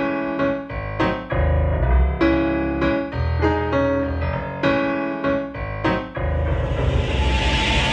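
Song intro: keyboard chords played in short phrases over a deep bass, ending with a rising noise swell that cuts off suddenly.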